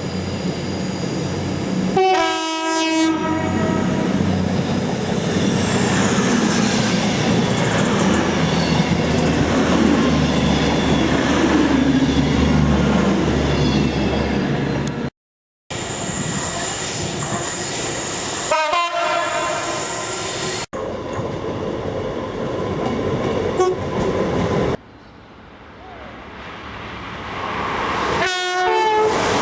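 A series of passing trains cut together, the rumble of the moving trains broken by short two-tone horn blasts. The horns sound about two seconds in, again about nineteen seconds in and near the end. Each blast is two notes in quick succession.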